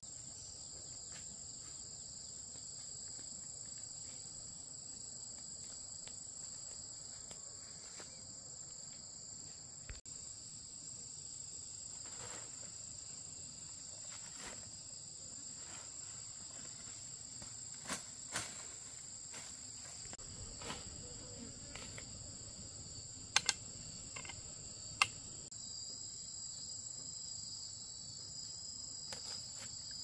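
Steady, high-pitched chirring of an insect chorus, as two unbroken high tones. A few short sharp clicks come just past the middle and twice more near three-quarters of the way through.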